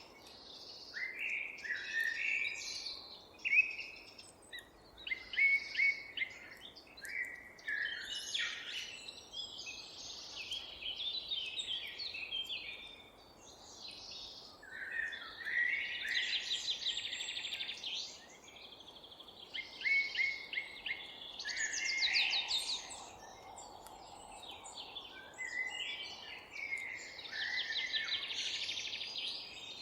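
Several songbirds singing over one another: a continuous chorus of chirps, whistled phrases and fast trills, over a faint steady background hiss.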